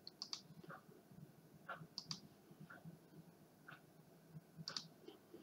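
Faint computer mouse clicks, several short clicks spread unevenly over a few seconds, against near-silent room tone.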